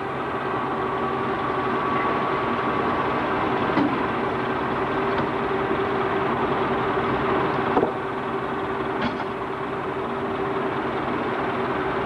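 Steady mechanical running hum with one held tone, broken by a few faint clicks.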